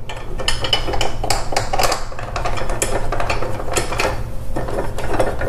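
Steel mounting rails and bolts of a TV wall-mount adapter plate clinking and scraping in a dense run of small metallic clicks as the bolts are turned in by hand into the TV's mounting holes.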